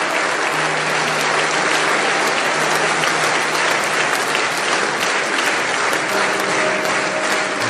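A large audience applauding, steady clapping from many hands.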